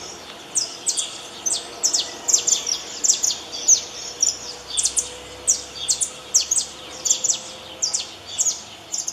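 Saffron finch (canário-da-terra) singing: a steady string of short, high chips, each sliding down in pitch, about three or four a second without a break.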